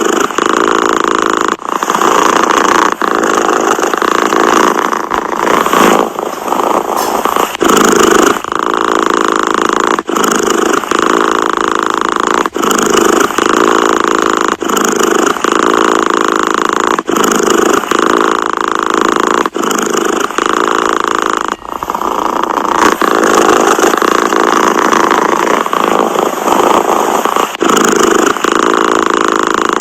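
Domestic cat purring, a loud steady rumble broken by a brief pause every two seconds or so.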